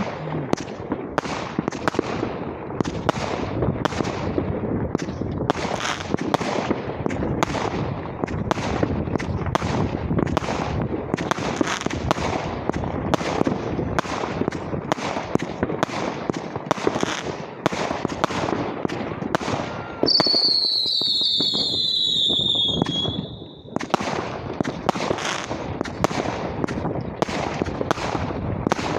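Fireworks going off in a dense, continuous barrage of overlapping bangs and crackles. About twenty seconds in, a loud whistle, falling slightly in pitch, runs for about three seconds over the bangs, from a whistling firework.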